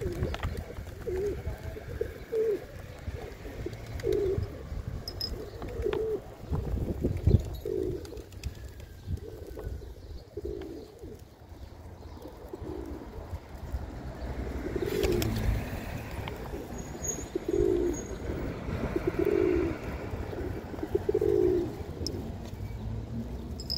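Domestic pigeons cooing, short low coos repeating every second or two from several birds in a feeding flock.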